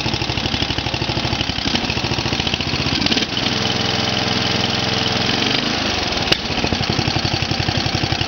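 Briggs & Stratton 12.5 I/C single-cylinder lawn tractor engine running just after a cold start, with an uneven beat at idle. About three seconds in it picks up to a steady higher speed, then drops back to idle some two and a half seconds later, followed by one sharp click.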